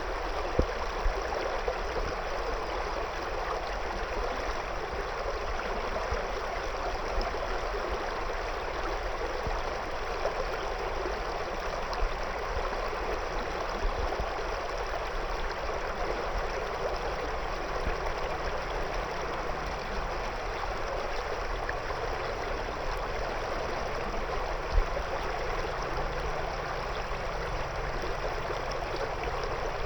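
Shallow river flowing steadily around stones: a continuous, even rush and gurgle of water, with a few brief low thumps.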